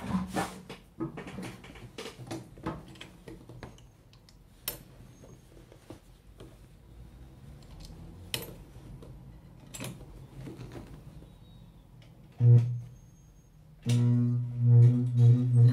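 Denim being shifted and handled under the presser foot, with scattered small clicks. Then an industrial sewing machine runs: a short burst about twelve seconds in, and near the end a steady low hum with stitching, sewing a denim patch onto the inside of jeans over a hole.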